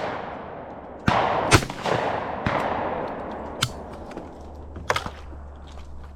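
Shotgun shots: about five sharp reports a second or so apart, the loudest about a second and a half in, each trailed by rolling echo.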